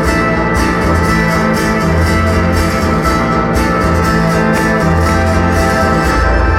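Live concert music played loud: layered guitar over a heavy low bass line, dense and sustained with no break.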